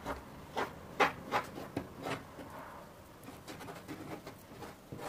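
Hands pressing and lifting the edges of a paper-thin oiled dough sheet on a wooden table: a few short taps in the first two seconds or so, then fainter scattered ticks.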